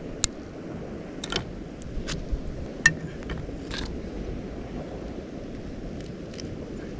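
Several sharp clicks and taps in the first four seconds as a wooden stick and cut fruit are handled, over a steady low rush of wind and surf.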